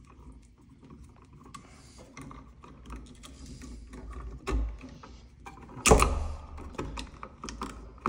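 Scattered light clicks and taps of a screwdriver and copper wires being handled at an electrical switch box, as the wires are unhooked from an old three-way toggle switch. A louder knock comes about four and a half seconds in, and the sharpest click about six seconds in.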